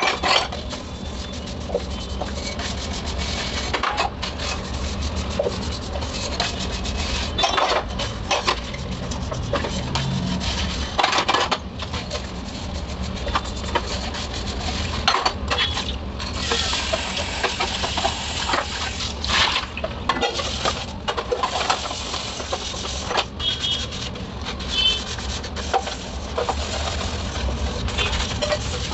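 Stainless steel tumblers, pots and lids clinking and knocking against each other in a sink while they are scrubbed by hand with a soapy scrub pad, with frequent sharp metal-on-metal clinks.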